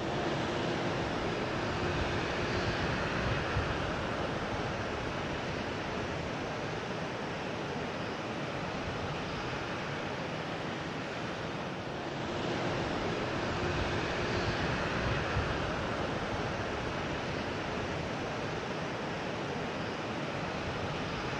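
Steady rushing noise of jet aircraft engines heard across an airfield, with a faint hum, swelling slightly a couple of seconds in and again about two-thirds of the way through.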